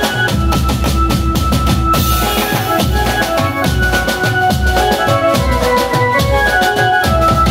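Music with a driving drum-kit beat of bass drum and snare under a melody of held notes.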